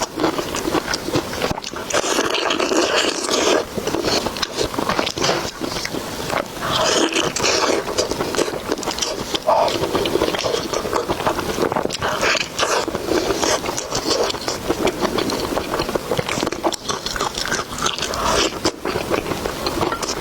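Close-miked eating sounds: a person chewing food continuously, with many quick wet mouth clicks and smacks.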